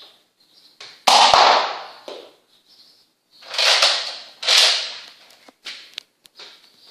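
Nerf foam-dart blaster firing three shots, each a sharp pop of air that fades over about a second, at about one second in and then twice more close together; short faint clicks follow near the end as the blaster is primed again.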